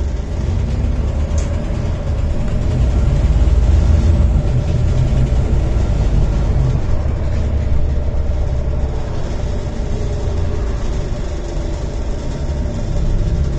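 Volvo B7TL double-decker bus's six-cylinder diesel engine running steadily, a deep low drone with a faint steady tone above it, getting a little louder about three seconds in.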